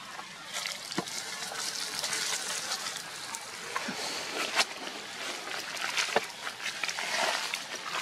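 Dry leaf litter rustling and crackling under shifting monkeys' feet, a continuous papery rustle with scattered sharp clicks.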